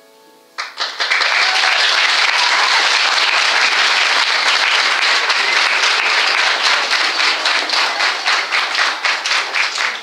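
Audience applauding, starting suddenly about half a second in, with separate claps standing out more toward the end.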